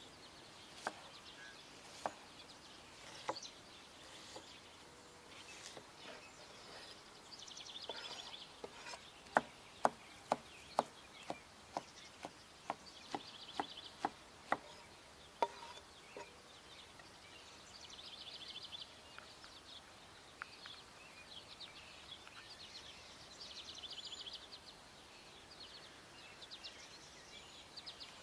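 Sharp separate knocks, with a quick run of about a dozen, roughly two a second, in the middle, over short high chirping trills that recur every few seconds.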